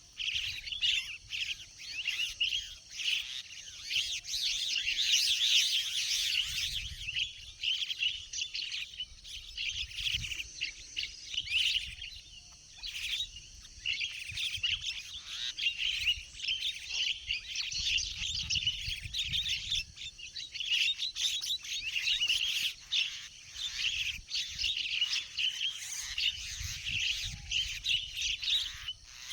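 A flock of Javan mynas (jalak kebo) chattering and chirping continuously, the calls tumbling over one another without a break.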